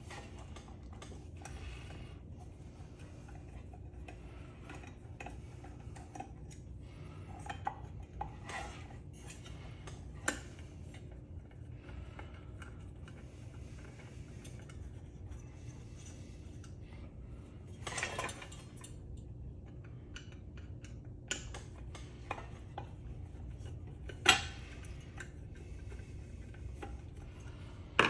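Small metal parts and hand tools clinking and clattering as a ceiling fan is taken apart for scrap, with scattered light clicks and a few louder clanks, the loudest near the end.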